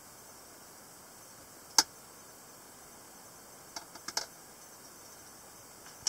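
Sharp metallic clicks from an AK-47-style semiautomatic folding pocket knife's blade and lock mechanism as it is handled: one loud snap about two seconds in, a quick cluster of lighter clicks around four seconds, and two more near the end.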